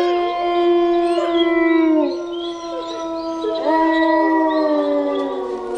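Wolves howling in chorus: several long, drawn-out howls overlap and slide slowly down in pitch, and a fresh howl rises about two-thirds of the way through.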